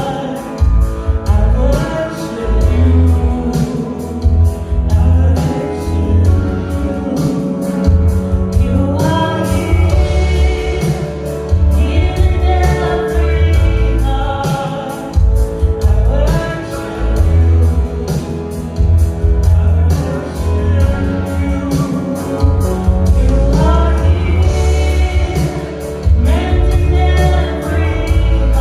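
Gospel worship song with sung vocals over a band with a steady beat.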